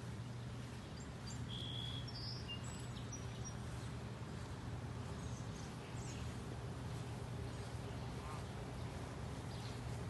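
Small birds chirping a few times, short and high, in the first few seconds over a steady low outdoor hum.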